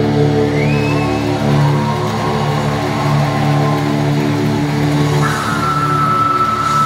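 Live metal band with keyboards playing a slow passage of held, droning chords, with no drum beats. A short rising note comes in about half a second in, and a high steady tone joins about five seconds in.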